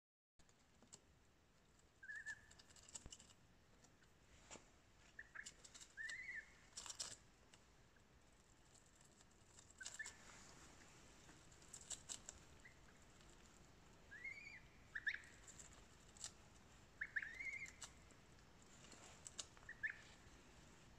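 Goslings peeping now and then with short, arched calls, over scattered crisp clicks and crunches of their bills tearing and pecking at a napa cabbage leaf.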